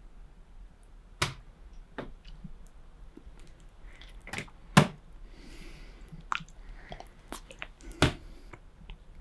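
A person eating rice porridge off a wooden spoon: wet mouth smacks and sharp clicks at irregular intervals, about six of them, the loudest about five seconds in.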